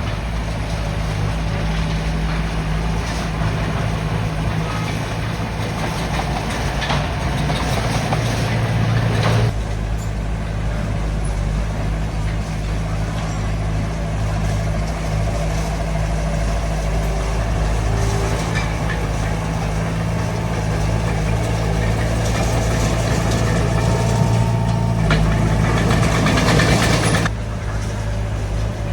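Diesel engine of a Komatsu D20 bulldozer running steadily as the machine works. The higher-pitched noise over the engine changes abruptly about nine seconds in and drops away sharply near the end.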